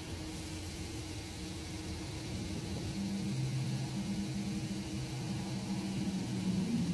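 A low engine hum, steady at first. From about three seconds in it grows louder, with a deeper droning tone coming in.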